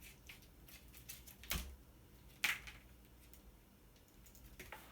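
Faint clicks and taps of hand tools and metal parts on a stripped amplifier chassis, with two sharper snaps, about a second and a half and two and a half seconds in.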